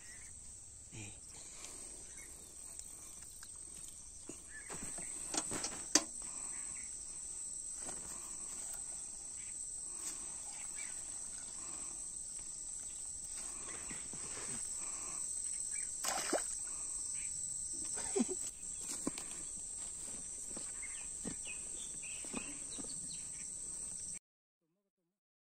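Steady high-pitched chorus of crickets and other insects. Scattered short knocks and splashes come from hands working in wet mud and shallow water. All sound cuts off suddenly about a second before the end.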